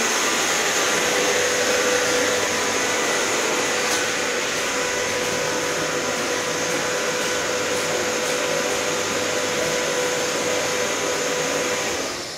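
DEVE hydraulic elevator running as the car travels in its shaft: a steady hum with a rushing hiss from the hydraulic drive. It falls away near the end.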